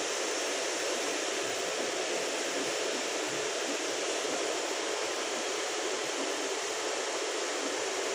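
Cooling fans of a row of 230 W 7R moving-head beam lights running together: a steady, even rush of air with no breaks or changes.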